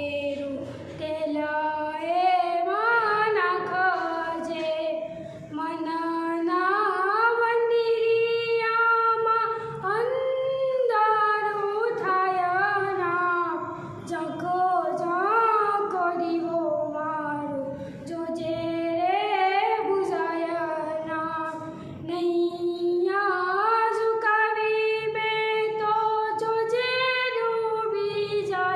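A teenage girl singing unaccompanied: a melodic song with long held notes and gliding ornaments, with short pauses between phrases.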